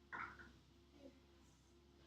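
Near silence: room tone with a faint steady hum, broken by one brief short sound just after the start and a fainter one about a second in.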